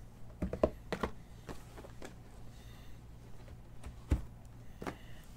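Scattered light taps and knocks of card boxes being handled on a tabletop, a cluster in the first second and the loudest knock about four seconds in, over a low steady hum.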